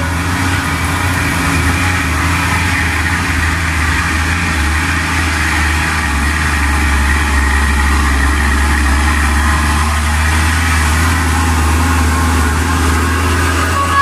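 Isuzu Giga FVZ dump truck's diesel engine pulling up a climb. It is a steady, deep engine drone as the truck comes close and passes.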